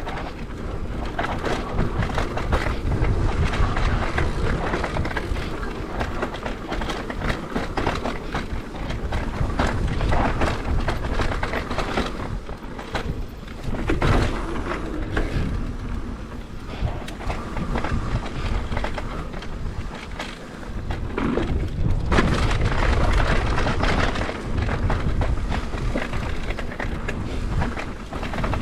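Mountain bike rolling fast down a dirt trail: tyres on dirt and the bike rattling over ruts, with wind buffeting the microphone, surging and easing in waves.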